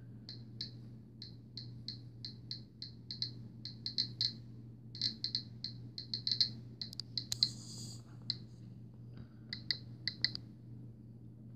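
GQ GMC-320 Plus Geiger counter clicking at irregular intervals, several clicks a second, each a short beep: the random detection counts from the radiation of old depression-era uranium glass held against it.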